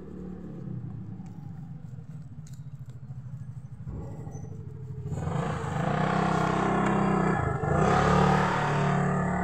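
Motor vehicle passing on the street: its engine runs throughout and grows much louder about five seconds in, staying loud near the end.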